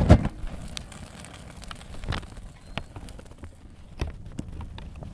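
Cinematic intro sound effects: a loud hit right at the start, then scattered crackles and clicks over a steady low rumble.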